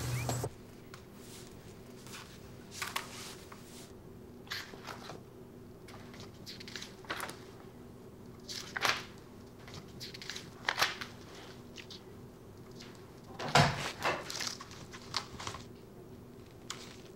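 Quiet room tone with scattered short rustles and taps of a paper booklet being handled and its pages turned, the loudest about two-thirds of the way through. A low hum cuts off about half a second in.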